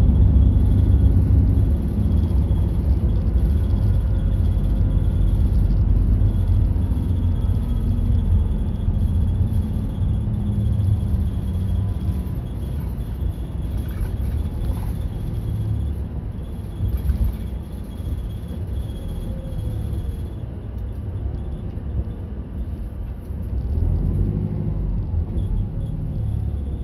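Fukui Railway route bus running on the road, heard from inside the cabin: a steady engine and road rumble. The engine note eases off over the first half and picks up again near the end.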